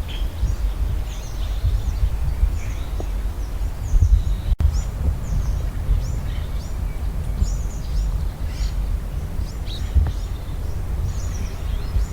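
Many small birds chirping continuously over a steady low rumble of wind on the microphone, with a brief dropout about four and a half seconds in.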